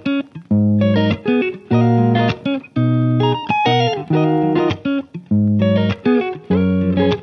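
Background music: a guitar-led instrumental track, plucked notes in short phrases with brief pauses between them.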